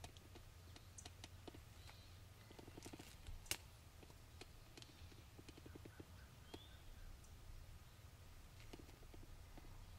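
Near silence: a faint steady low rumble with scattered soft clicks, a brief rapid run of ticks about three seconds in and one sharper click shortly after.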